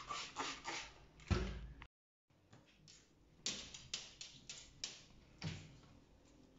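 Trigger spray bottle squirting glass cleaner onto a mirror: about six short hissing squirts in quick, uneven succession in the second half. Before that, background music ends with a thump and a moment of dead silence.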